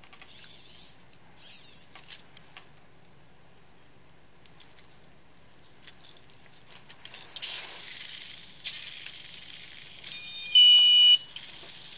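Petoi Nybble robot cat's servos whirring in short spurts as its legs move, with scattered light clicks. Near the end its buzzer gives one loud, steady, high beep lasting under a second.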